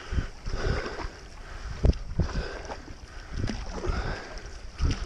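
A stand-up paddle blade stroking through calm water in repeated strokes, with low thumps the loudest sounds throughout.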